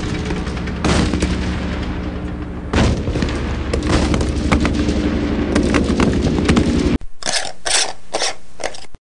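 Gunfire sound effect: a dense, rapid run of shots and booms. At about seven seconds it cuts off abruptly, and a different effect follows with a few separate bursts.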